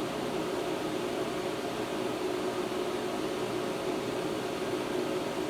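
Cooling fan of a 250-amp inverter DC welding machine running steadily with a constant hum, the machine switched on and idle, not yet striking an arc.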